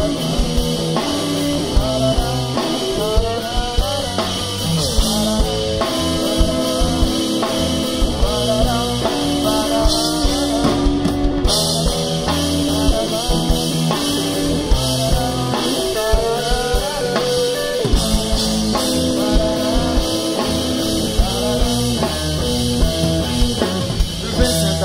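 Rock band playing live: electric guitar over electric bass and drum kit, with no sung words.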